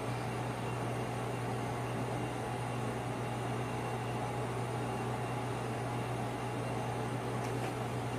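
A steady low machine hum over an even hiss, unchanging throughout.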